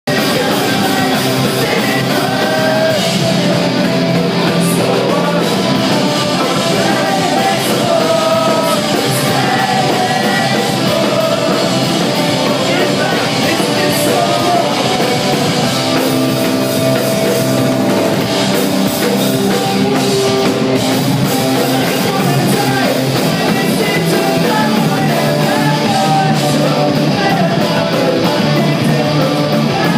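Live punk rock band playing loudly: a singer sings into a microphone over electric guitars.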